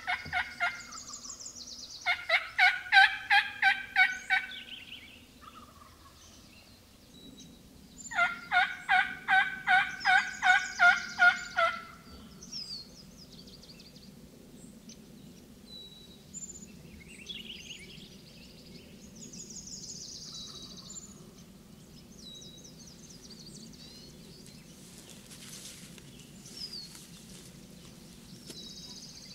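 Turkey yelping in two runs of about ten evenly spaced notes each, one about two seconds in and one about eight seconds in, with a shorter call right at the start. Small birds chirp faintly between and after the runs.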